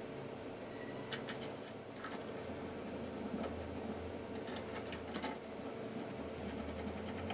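Small electric motor of a power screwdriver running steadily while driving a terminal screw down, with a few light metallic clicks.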